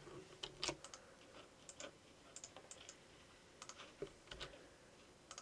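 Faint, scattered clicks of a computer keyboard and mouse, a few sparse taps spread over several seconds.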